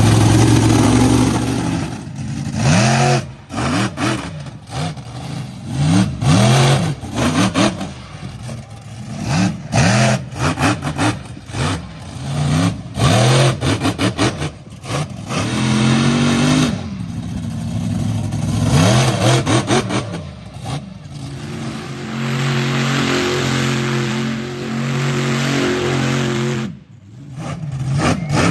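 Monster truck engine revving hard over and over, its pitch sweeping up and down, with sharp knocks and thumps among the revs. For the last several seconds it runs at a steadier, even note, dipping briefly just before the end.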